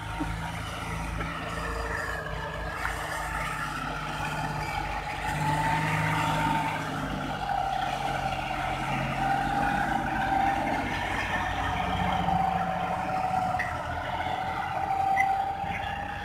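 John Deere 5050D tractor's three-cylinder diesel engine running steadily under load as it drags a rear leveling blade through soil, with a high whine over the engine note that wavers slightly in pitch.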